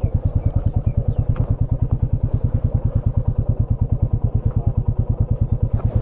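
Motorcycle engine idling with an even, steady chug of about a dozen beats a second.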